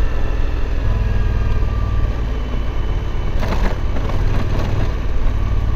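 Suzuki V-Strom 1050's V-twin engine running steadily as the motorcycle rolls along a gravel road, with a low rumble and road noise. A short patch of crunching, like gravel under the tyres, comes about halfway through.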